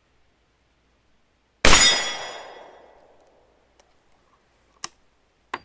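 A single gunshot from a New England Firearms Survivor single-shot break-open rifle firing a .45 Long Colt round, with a ringing tail that fades over about a second and a half. Near the end come two short sharp clicks.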